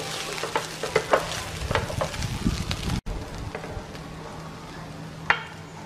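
Fried rice sizzling in a nonstick frying pan as a wooden spatula stirs and tosses it, the spatula knocking and scraping against the pan several times in the first three seconds. After a break the sizzle goes on more quietly, with one sharp tap of the spatula on the pan near the end.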